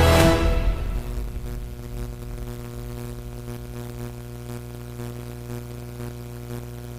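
Closing ident music fading out within the first second, leaving a steady low hum with a few faint held tones.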